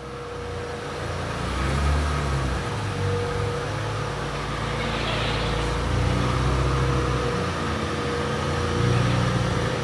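Mitsubishi Galant's engine running at low speed, with the revs swelling gently a couple of times as the car is moved slowly.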